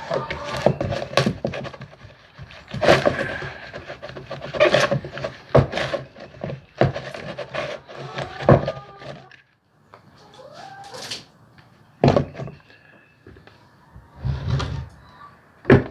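Hands cleaning a plastic poultry waterer: an irregular run of knocks, clatters and scrubbing squeaks.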